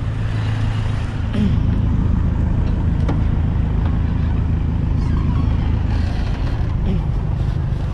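Large engine running steadily with a low, even drone, and a few faint clicks over it.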